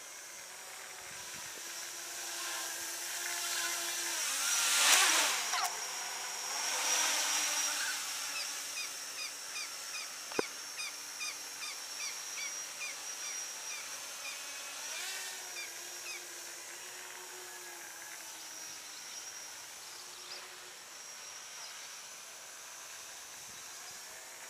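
Home-built brushless quadcopter in flight, its motors and propellers giving a steady high whine whose pitch drifts up and down as the throttle changes. It swells loudest about five seconds in, then settles back.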